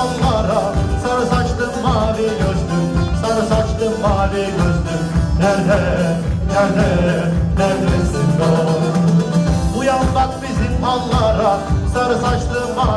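Live Turkish folk music played through a PA in a hall: bağlama and a small band playing with a steady beat, with a man singing.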